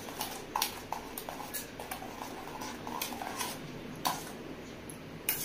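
A spoon stirring beaten eggs and sugar in a stainless steel bowl, clinking and scraping against the metal sides in irregular light taps, to blend the sugar into the eggs.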